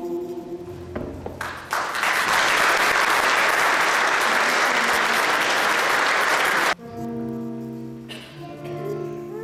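A choir's final held chord dies away, and about a second and a half in an audience breaks into loud applause. The applause cuts off abruptly near the end, and sustained music notes follow.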